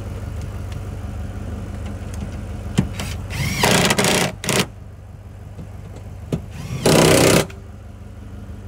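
Ford Mustang GT's V8 idling steadily, broken by loud, short noisy bursts about three and a half seconds in, briefly again just after, and once more about seven seconds in.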